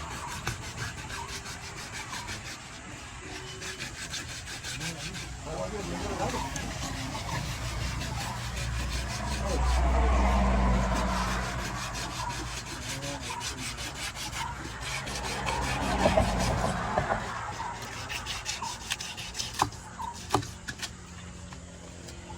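Rapid, rhythmic scraping of a blade against a large catla carp, typical of the fish being worked over by a fish-market butcher. Twice, about ten and sixteen seconds in, a passing vehicle swells up and fades beneath it.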